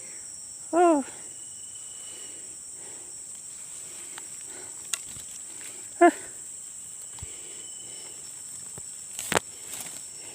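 Steady high-pitched insect chorus, typical of crickets in swampy ground. A short falling vocal sound rises out of it about a second in and again about six seconds in, and a sharp click comes near the end.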